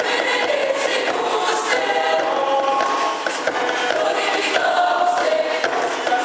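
Mixed choir of men and women singing in several parts, holding sustained notes that change pitch together.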